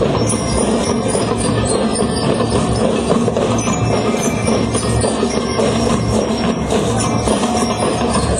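A school marching band playing a march, with bright bell lyres ringing over a steady drum beat.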